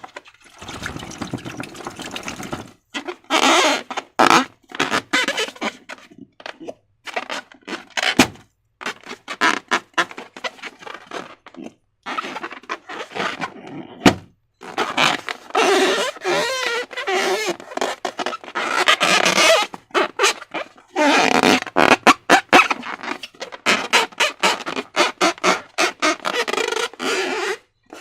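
Slime being squeezed and worked by hand, squelching in short irregular bursts, with two sharp clicks, one about eight seconds in and one about fourteen seconds in.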